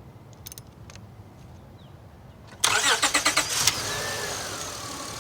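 Honda car engine cranked by the starter for about a second, with a rapid pulsing, then catching and settling into a steady idle with a whine that falls in pitch. The engine now starts with a new battery terminal connector fitted in place of the badly corroded one that had kept the car from starting. A few faint clicks come before the cranking.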